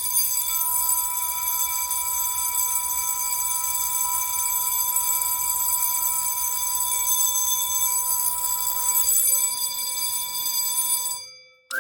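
Fire alarm supervisory bell ringing continuously, a supervisory signal set off by turning a System Sensor RTS-151 key test switch. It cuts off sharply near the end.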